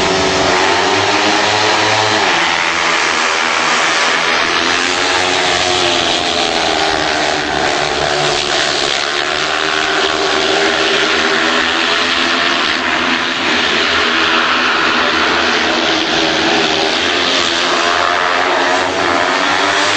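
Speedway motorcycles racing, their 500 cc single-cylinder methanol engines running loud and continuous, several engine notes overlapping and rising and falling in pitch.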